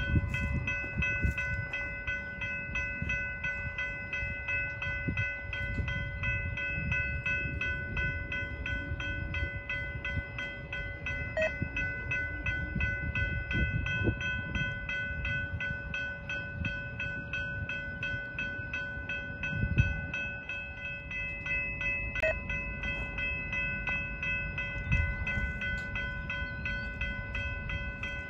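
Freight train of tank cars rolling slowly past, a low uneven rumble with scattered wheel and coupler knocks. Over it, a grade-crossing bell rings with a steady high tone while the train occupies the crossing.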